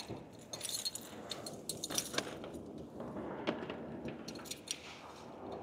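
Light clinking and jingling with scattered small knocks and handling noises.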